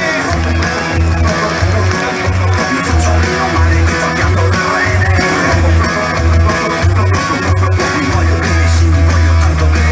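Live blues-rock from a guitar-and-drums duo: a loud electric guitar riff over drums, driven by an even, pulsing low beat.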